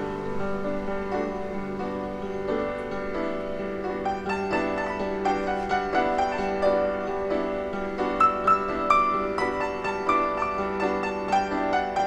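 Background music led by piano, with a steady sustained low note underneath and a melody that gets busier about four seconds in.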